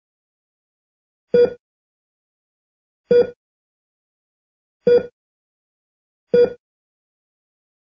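Hospital patient monitor beeping once per heartbeat. There are four short beeps, each a steady tone a fifth of a second long, about one and a half to two seconds apart, with silence between them.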